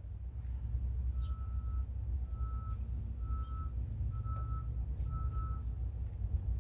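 Five short electronic beeps at one steady pitch, about one a second, over a low steady rumble.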